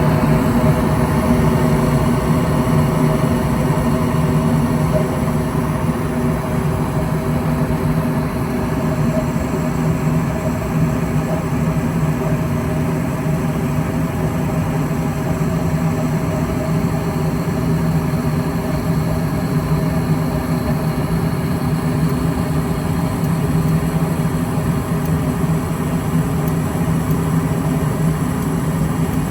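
A vehicle engine running steadily: a low hum with a few fixed tones that hold the same pitch throughout.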